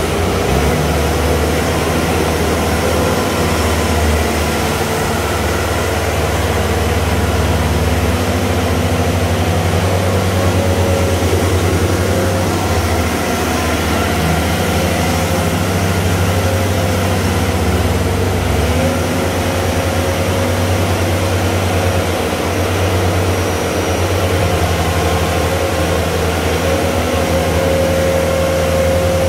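Bobcat S750 skid-steer loader's diesel engine running steadily as the machine drives and turns, its note shifting only slightly.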